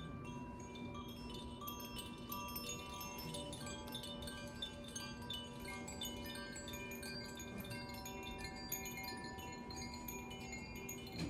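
Tuned hand-held wind chimes of the Koshi or Zaphir kind, shaken gently so that many bell-like notes sound at irregular moments and ring on, overlapping, over a steady low tone.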